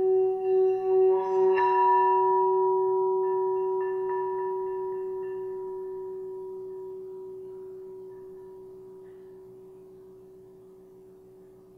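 A metal singing bowl being rimmed with a striker, its deep singing tone pulsing about twice a second. About a second and a half in the striker knocks the rim once, and the bowl then rings on alone, fading slowly and evenly.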